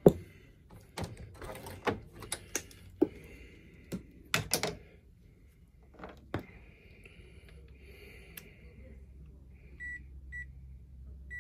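Clicks, knocks and rustling of test leads and a digital clamp meter being handled and hooked up to test a blower motor's run capacitor, then a couple of short electronic beeps from the meter near the end.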